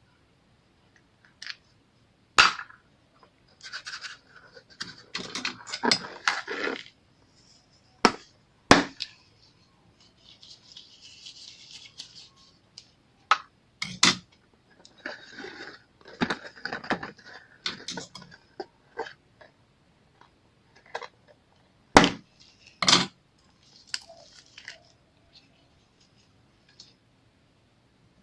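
Slime being squeezed and worked by hand: wet, crackly squishing, broken by several sharp popping clicks as air pockets burst.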